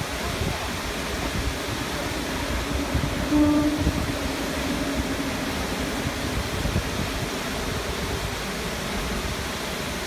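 Steady rush of a waterfall, with a KiHa 40 series diesel railcar passing above it. The railcar gives a short horn blast about three and a half seconds in, and the faint drone of its engine comes and goes around it.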